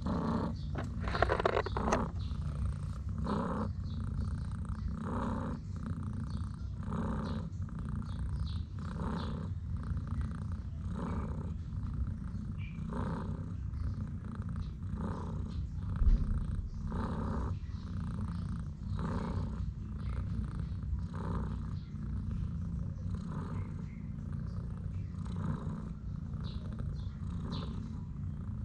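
Mother cat purring steadily while her kittens suckle, the purr swelling in a slow rhythm about every two seconds. One sharp knock sounds a little past halfway.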